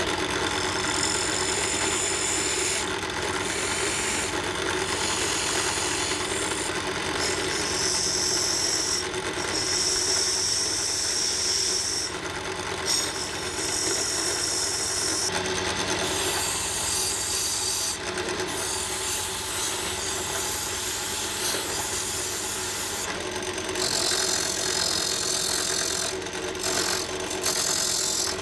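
Power tool sanding rusty sheet steel: a steady motor hum under a rasping scrape, with a high hiss that comes and goes as the abrasive is pressed on and lifted off the metal.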